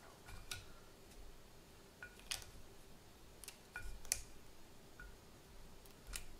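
Chopsticks tapping and clicking against a ceramic plate while food is picked up: about half a dozen light, separate clicks, some with a brief ring from the plate.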